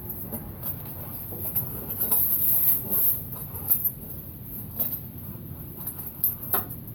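Scattered clinks and knocks of metal parts being handled while a heavy truck wheel is worked onto its hub, over a steady noisy background with a high hiss.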